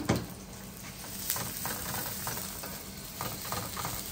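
Shallots, galangal and green chilli sizzling in hot oil as they are stirred in a pan. A couple of sharp knocks come right at the start, then a steady sizzle with irregular scraping taps from the stirring.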